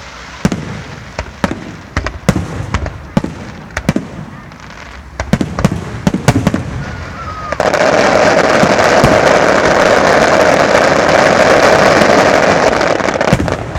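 Aerial fireworks bursting in a string of sharp, irregular bangs. About halfway through, a dense continuous crackling starts suddenly and lasts about six seconds, then eases off near the end.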